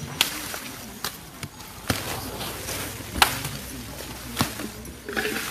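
A blade chopping into tree branches on the ground, about five sharp chops at an uneven pace, the loudest about three seconds in.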